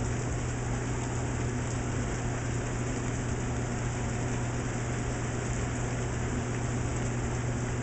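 Rain falling steadily onto a puddle on a brick path, an even hiss of drops on the water, with a steady low hum beneath it.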